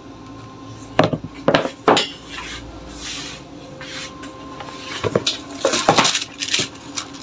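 Cardboard gift boxes being handled on a hard tabletop: three sharp knocks in the first two seconds, then a burst of clattering and rustling a little after the halfway point as the cotton cloth and a box lid are moved.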